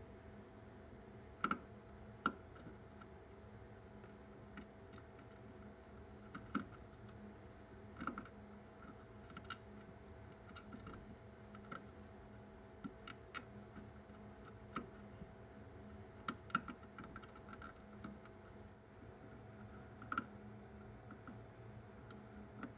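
Faint, irregular small clicks and taps of a soldering iron tip and copper wire working on an engine control module's circuit board while a capacitor is desoldered, over a faint steady hum.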